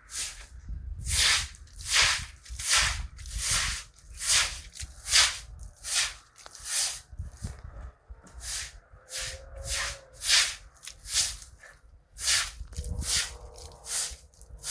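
Rhythmic scrubbing strokes across a surface, a short hiss about one and a half times a second.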